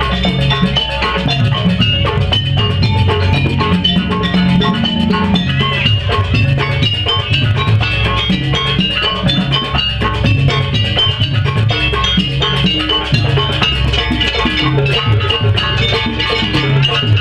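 Live Banyuwangi barong gamelan music: drums and tuned metal percussion play a dense, driving rhythm, with many quick metallic melody notes over a steady low drum beat.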